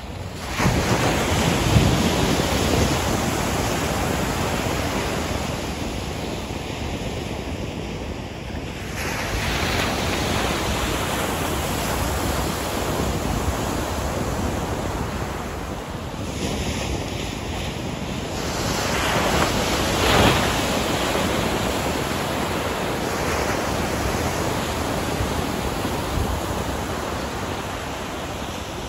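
Pacific Ocean surf breaking and washing up a sandy beach, a steady rush that swells as waves break, loudest about two seconds in, around ten seconds and around twenty seconds.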